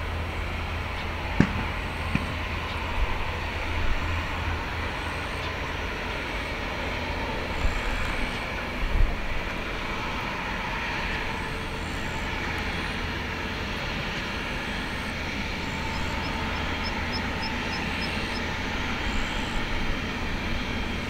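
Airbus A350-900 taxiing: a steady low rumble under an airy hiss, with a few sharp knocks in the first ten seconds, the loudest about a second and a half in.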